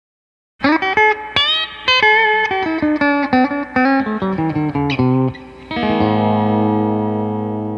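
Epiphone SL electric guitar played: a quick run of single notes with a few string bends, then a long ringing note that slowly fades.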